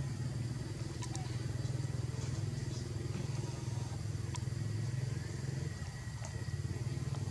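A steady low engine drone, like a motor running at idle, with a few faint sharp clicks over it.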